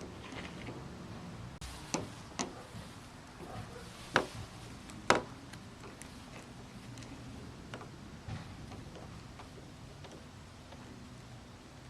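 Scattered sharp clicks and taps of a plastic shark fin antenna cover being handled and test-fitted over the car's roof antenna base, four louder ones in the first half and a few fainter ones later.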